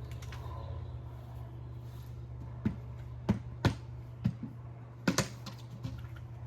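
About six sharp taps and clicks, two of them in quick succession near the end, over a steady low hum.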